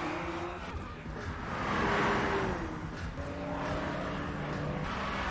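Car engines running hard at speed, with a swell of engine and tyre noise as a car goes past about two seconds in, and engine notes gliding up and down.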